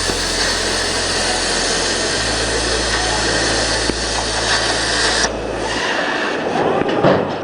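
CNC plasma cutting machine running, a steady hiss of the plasma arc over a low hum. The hiss and hum stop a little over five seconds in, followed by a few knocks and a short clatter.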